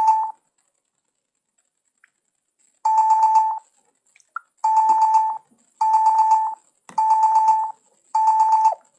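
An electronic ringing sound effect, a steady high ring with a fast flutter, played again and again in short bursts of under a second: the tail of one at the start, then five more about a second apart from around three seconds in.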